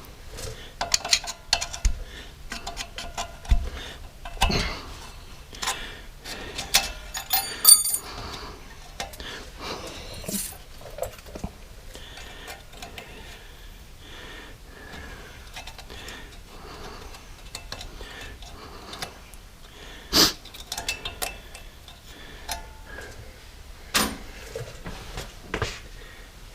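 Small metal clinks, clicks and knocks of hand tools and brake caliper parts being handled, with a few louder knocks about four seconds in, about twenty seconds in and near the end.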